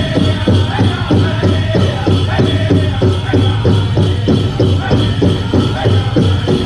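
Powwow drum group playing a chicken dance song: a big drum struck in a steady beat, about three strokes a second, with the singers chanting over it.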